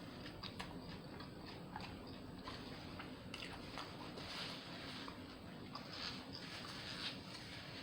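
Close-miked chewing of a veggie sub: soft, wet mouth clicks and smacks, scattered and irregular throughout.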